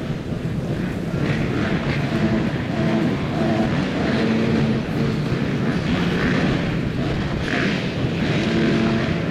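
A field of motocross bikes at the starting gate, their engines running and revved up and down while they wait for the start.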